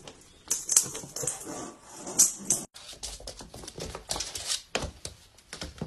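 A run of sharp clicks and knocks from cats scrambling and batting a small ball on a wooden floor, with a brief silent break about two and a half seconds in.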